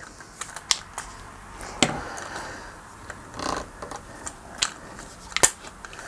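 A handful of sharp clicks and a short scuffing rattle as a telescopic selfie stick is extended and its head adjusted by hand.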